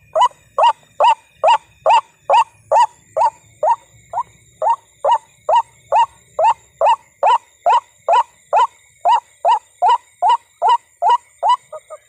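White-breasted waterhen call: a loud 'kru-ak' note repeated at an even pace, a little over twice a second. Near the end it breaks into two quick short notes and stops.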